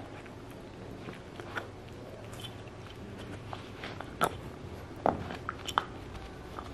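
Small terrier gnawing a hard deer antler: teeth scraping and clicking on the antler, with several sharp clicks that come louder and closer together in the second half.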